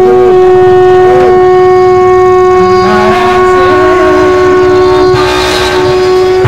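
A conch shell (shankh) blown in one long, steady, unbroken note.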